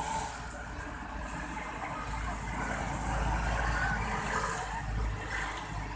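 A bus's engine rumbling low as it passes, the rumble growing from about two seconds in and falling away near the end, over steady road traffic noise.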